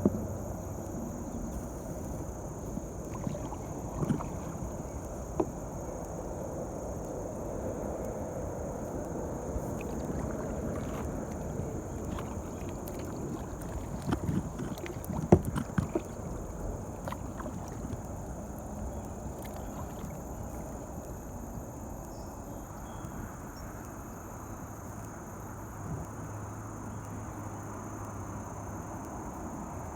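Kayak being paddled on a river: steady water noise around the boat, with a few short sharp knocks, the loudest about fifteen seconds in.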